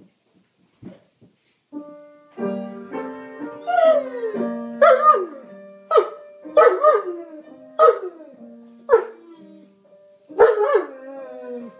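German Shepherd barking along to music: about seven loud barks, each falling in pitch, over sustained keyboard-like notes that begin about two seconds in.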